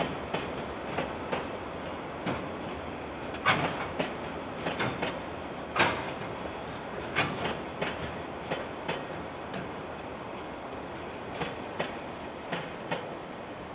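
Freight train of container wagons rolling past: a steady running noise from the wheels on the rails, broken by irregular sharp clanks and clicks, which thin out as the last wagons go by near the end.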